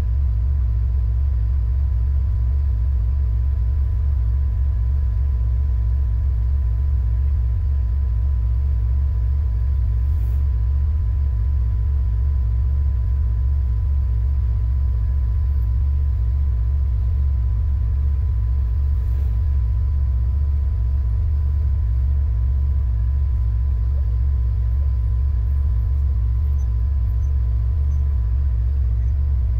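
Off-road vehicle engine running at a steady idle: a constant low rumble with a faint steady whine above it.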